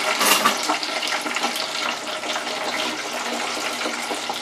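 French fries sizzling and bubbling in hot oil in a deep fryer, a steady crackling fry a few seconds after they were dropped in.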